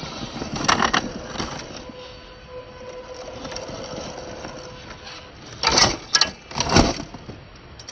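Axial SCX10 II 1/10-scale RC crawler's electric motor and gears whining steadily at low speed, with sharp clattering knocks from the truck on the trail, a pair about a second in and the loudest ones a little after halfway.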